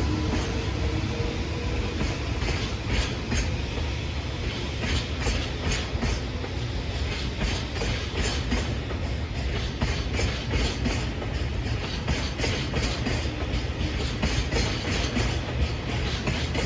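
A freight train of tank wagons rolling past, its wheels clacking over rail joints in a continuing run of sharp clicks over a steady rumble. A low hum fades out within the first couple of seconds.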